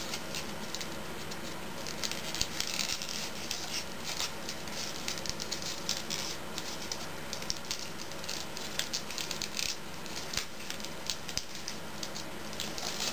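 Origami paper crinkling and crackling under the fingers as it is pleated and creased, in many small crisp ticks, over a faint steady hum.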